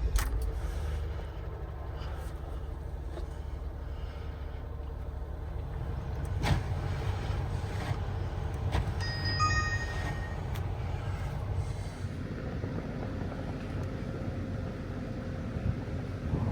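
Jeep engine catching on a cold start in freezing weather and settling into a steady idle, its note shifting slightly about twelve seconds in. A short electronic dashboard chime sounds near ten seconds.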